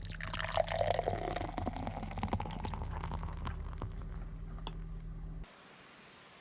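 Guinness beer poured from its can into a glass, the pour's tone falling over the first second or so, with a fizzy crackle of bubbles throughout. It cuts off abruptly about five and a half seconds in.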